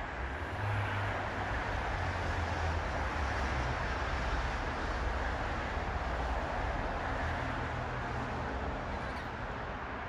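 Steady rumble and hiss of road traffic, swelling a little after the start and easing off near the end; no bird calls are heard.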